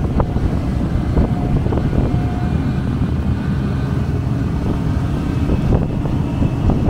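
Quad bike's engine running steadily as it rides along a gravel road, with wind rumble on the microphone.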